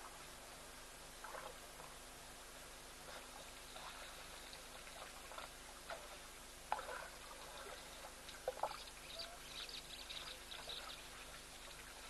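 African elephants drinking at a waterhole: water pouring and splashing from their trunks in irregular, faint bursts, the loudest a little under seven seconds in and again about eight and a half seconds in.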